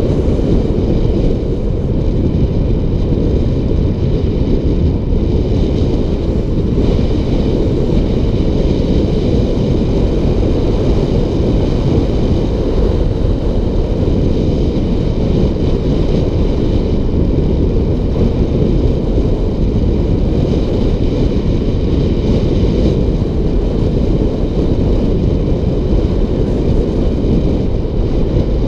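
Steady wind buffeting the microphone as it moves downhill at speed, a loud unbroken low rumble.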